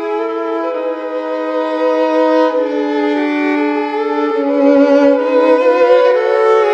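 Violin music: a slow melody of long held, bowed notes, mostly with two notes sounding together, moving from note to note every second or so.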